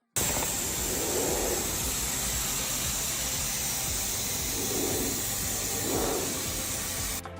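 A loud, steady hiss with a low rumble beneath it, starting suddenly and breaking off near the end.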